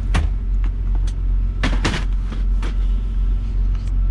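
Steady low rumble of a semi-truck's idling diesel engine heard inside the cab, with a few clicks and knocks of things being handled, the loudest a quick pair about two seconds in.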